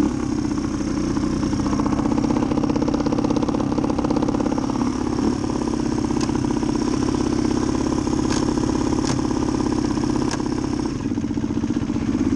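Suzuki DR250's single-cylinder four-stroke engine idling steadily, with a few sharp clicks partway through. The rider wonders whether the idle is set too high or whether the noise is the clutch.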